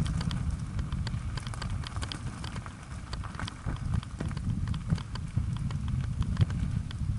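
Bicycle tyres rolling fast over a loose gravel track, with stones crunching and pinging and the bike rattling in many sharp clicks, over a steady low rumble of wind and vibration on the bike-mounted camera.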